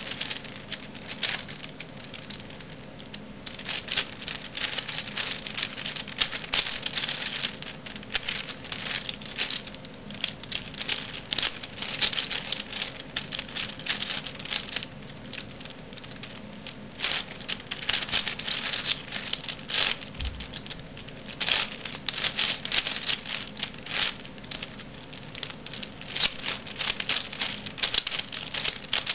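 Plastic clicking and clacking of a black V-Cube 5x5 puzzle cube as its layers are turned one after another during a solve, a dense run of turns broken by a few short pauses.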